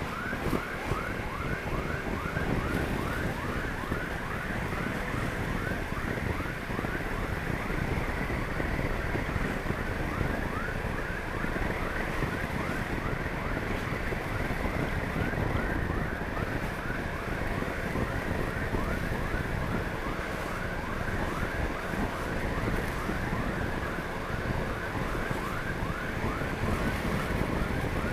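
Ambulance siren in its fast yelp mode, with short rising sweeps repeating about three times a second, over steady wind rush on the microphone.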